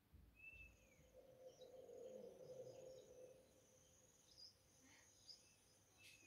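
Near silence, with a few faint, short high chirps and a faint low hum.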